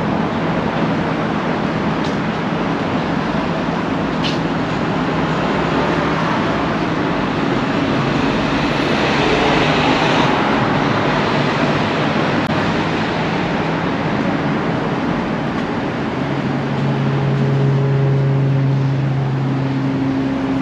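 Street traffic: a steady rush of passing vehicles, with one swelling past about nine to ten seconds in, and a nearby engine's low steady drone that grows stronger near the end.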